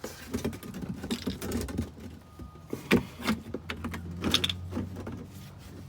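Irregular knocks and clicks of a rubber fuel-line drain hose and an empty plastic jug being handled and set in place, with a faint low hum in the background.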